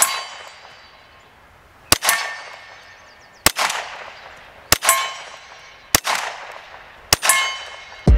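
KRISS Vector CRB carbine in .45 ACP firing five single shots, spaced about 1.2 to 1.5 seconds apart. Each shot is followed by a fading echo.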